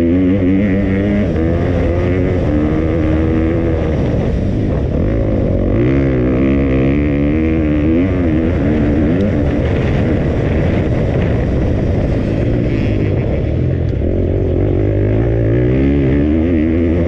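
2020 KTM 250 four-stroke motocross bike's single-cylinder engine revving hard while riding, its pitch climbing and dropping again and again as the throttle is opened and closed. Heard from the rider's helmet.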